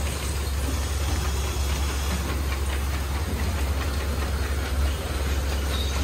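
Belanger Cube car wash running: its wraparound brushes spin against the front of a car over a steady low machine hum and the hiss of water spray.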